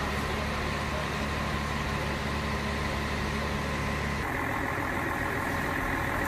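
Fire truck engine running steadily with a low hum while its aerial ladder platform is in use. The hum changes abruptly about four seconds in.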